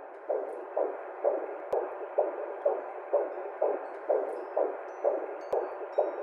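Whooshing heartbeat sound effect, a fetal heartbeat as heard in the womb through a Doppler monitor, pulsing steadily about twice a second. Faint high tones come in near the end.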